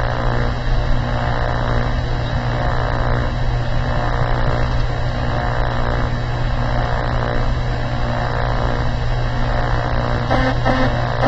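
Steady, loud electrical mains hum with a low buzz and many overtones, unchanging throughout. Near the end, music starts to come in over it.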